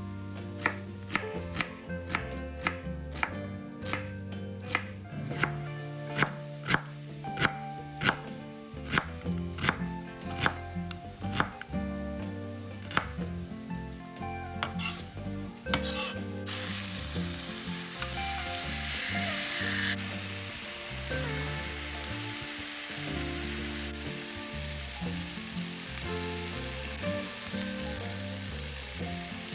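Kitchen knife chopping on a cutting board, about one to two sharp strikes a second for roughly the first half. Then, about halfway through, a sudden steady sizzle starts as food goes into hot oil in a frying pan.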